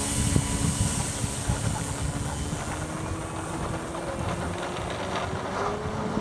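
Engine of a large RC model Cessna 182 running as the plane taxis, its pitch rising slowly and steadily, with wind rumble on the microphone.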